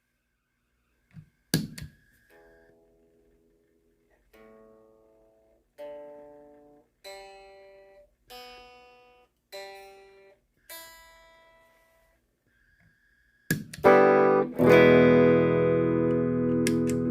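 Electric guitar played through a mini effects pedalboard: a couple of clicks, then seven separate chords, each struck and left to ring out. About thirteen seconds in, after a click, a much louder and denser chord rings on steadily.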